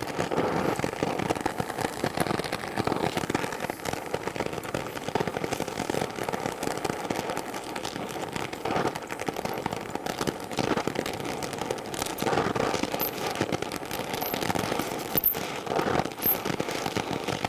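Brazing torch flame hissing steadily on a fluxed cast-iron joint, with many small clicks throughout, as bronze brazing rod is fed in and melted.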